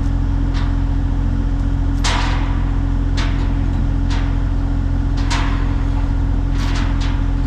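An excavator's engine running steadily, with a string of sharp knocks and clanks spread through it. The loudest comes about two seconds in and three come in quick succession near the end, as the chained tank is set down and shifted.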